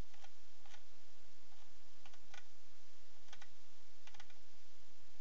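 Scattered clicks of a computer mouse being clicked and its scroll wheel turned, some in quick pairs or clusters, over a steady background hiss.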